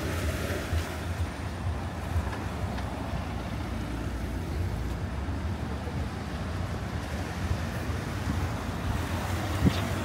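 Steady road traffic passing: a low rumble of car engines and tyres, with a short knock near the end.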